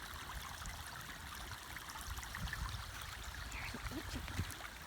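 Rainwater running down a flooded driveway like a small river: a steady trickling rush of runoff after heavy rain.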